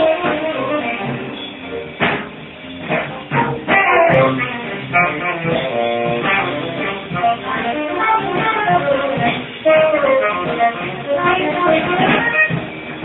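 Jazz combo playing live: upright piano, acoustic bass guitar and drums, with a cluster of sharp drum hits a few seconds in.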